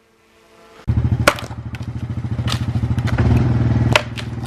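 A small engine starts about a second in and runs with a steady, pulsing beat, with a few sharp clicks over it.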